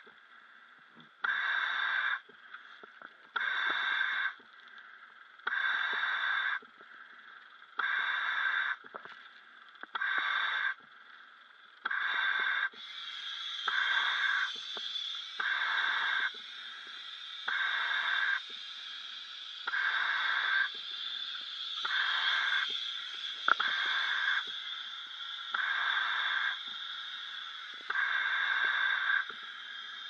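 A scuba diver breathing through a regulator: regular hissing breaths, each about a second long and about two seconds apart. From a little under halfway in, a steady hiss of air runs under the breaths.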